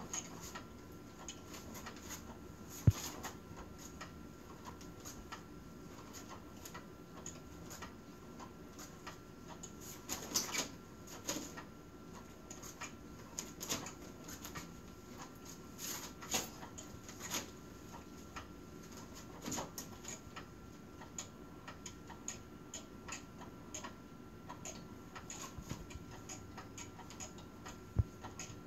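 Cat's Meow battery-powered cat toy running, its motor giving a faint steady whine while the wand moving under the nylon cover makes irregular ticks and clicks. A cat paws at the rustling fabric, with a sharper knock about three seconds in and another near the end.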